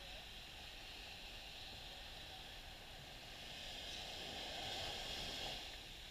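Small waves breaking and washing up on a sandy beach: a soft steady rush that swells about four seconds in and eases off near the end.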